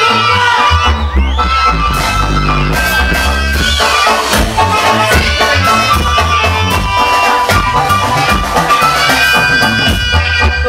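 A live band playing an instrumental passage: a steady bass and drum beat under held melody notes, with no singing.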